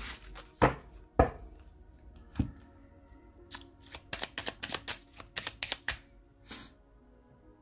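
Tarot cards shuffled by hand: a few separate sharp card snaps in the first two and a half seconds, then a quick run of snaps from about three and a half to six seconds in. Soft background music plays underneath.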